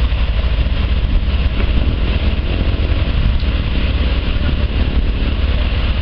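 An engine idling steadily, a continuous low-pitched running sound without change.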